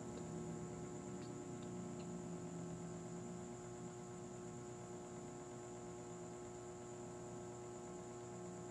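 Steady electrical hum made of several even tones, with a few faint ticks about one to two seconds in and a sharp click at the very end.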